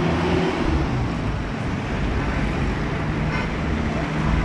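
Street traffic noise: a steady rumble of passing and running cars, with a low engine hum throughout.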